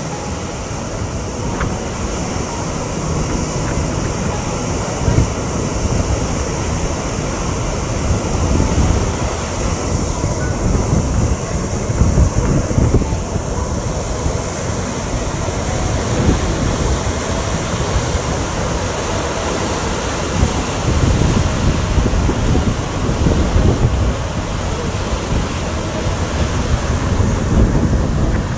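Water rushing through the sluices of a canal lock gate as the lock chamber fills: a steady hiss, overlaid by wind buffeting the microphone in uneven gusts.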